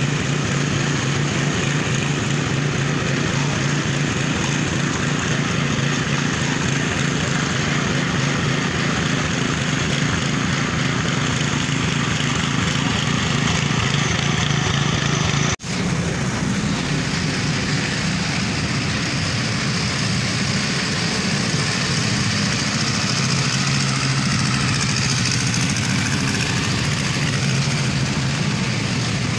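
Walk-behind power trowel's small air-cooled petrol engine running steadily under load as its rotating blades float a fresh concrete slab. The sound drops out for an instant about halfway through, then the same steady drone continues.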